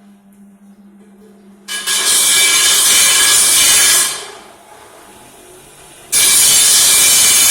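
Abrasive power tool grinding into square steel tubing: a low motor hum, then two loud stretches of harsh hiss with a quieter spell between. The second stretch cuts off abruptly near the end.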